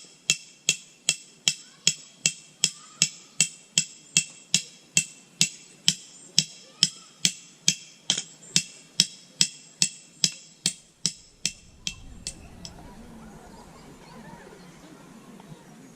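Steady hammer blows on metal, a little over two a second, each with a bright ringing tone. They stop about twelve seconds in, and a low rustling noise follows.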